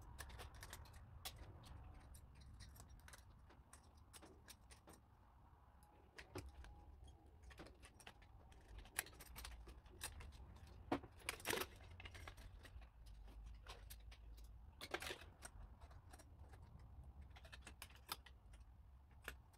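Faint clicks and rattles of small plastic and metal photocopier parts being handled and pulled apart by hand, with a few louder clacks about halfway through and again a few seconds later.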